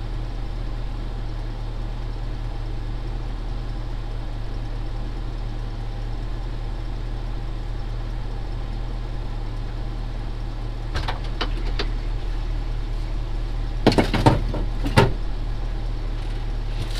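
Truck engine idling steadily, with a few light clicks about eleven seconds in and three sharp knocks near the end.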